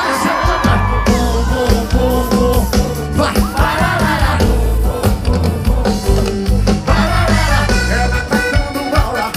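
Live concert music over a big outdoor sound system, heard from within the crowd: a heavy bass beat with singing over it.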